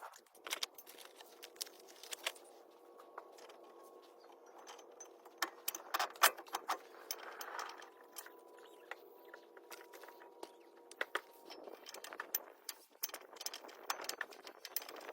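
Scattered metallic clicks and clinks of tools and brake parts being handled while new brake rotors and pads are fitted, over a faint steady hum.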